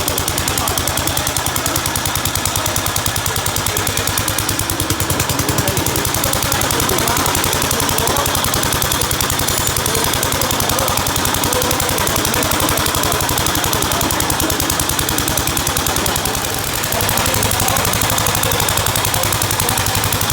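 Gravely walk-behind tractor's single-cylinder engine running steadily with a rapid, even firing beat; it dips briefly about three-quarters of the way through, then carries on.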